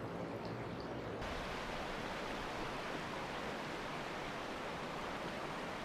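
Steady rushing of river rapids, growing brighter and fuller about a second in.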